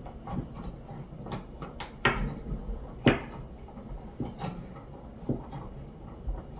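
Small clicks and knocks of hands and a tool working at an electrical switch box while the bare ground wires are joined, with two louder knocks about two and three seconds in.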